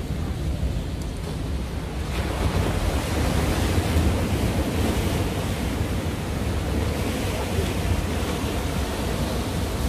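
Sea surf breaking and washing against the jetty's rock boulders, with wind buffeting the microphone in a low rumble; the surf swells louder about two seconds in.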